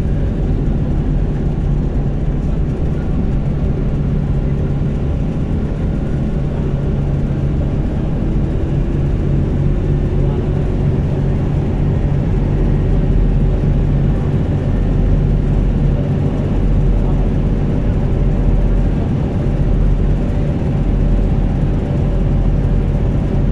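Steady low drone of a road vehicle heard from inside the cabin at highway speed: engine hum with tyre and road noise.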